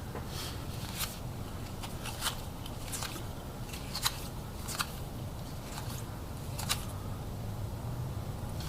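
Trading cards being handled and flipped through, with short, light clicks and snaps of card stock every second or so over a low steady hum.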